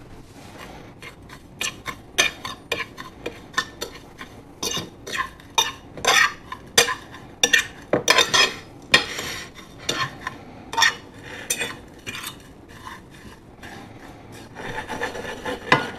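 A fork stirring and scraping a mix of panko crumbs and crushed potato chips on a flat plate, with quick irregular clicks of the fork against the plate.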